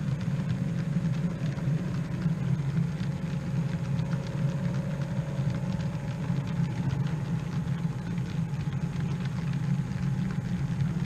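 OO gauge Accurascale Class 55 Deltic model locomotive running steadily while hauling a long train of container wagons, a continuous low mechanical hum with faint ticking from the wheels on the track.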